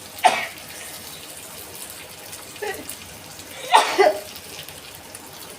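People sneezing, set off by the fumes of hot, spicy fish frying: one sharp sneeze just after the start, a smaller one near the middle, and a loud double sneeze about a second later. Under them runs the steady hiss of the fish sizzling in the pan.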